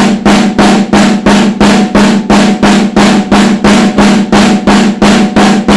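Snare drum struck repeatedly at an even pace, about three to four hits a second. Each hit rings with a strong steady drum tone.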